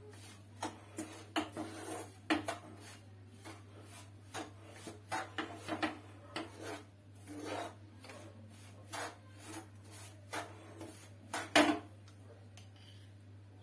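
A spatula scraping and stirring a dry, powdery mix of roasted flour, powdered sugar and ghee in a frying pan, in irregular rasping strokes with knocks against the pan. The loudest scrape comes about eleven and a half seconds in.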